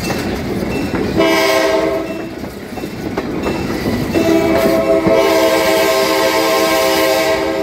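Diesel locomotive horn at the head of the train, heard from a passenger car behind. It gives a short blast about a second in and a long blast of about three seconds from about four seconds in, over the steady clatter of the car's wheels on the rails.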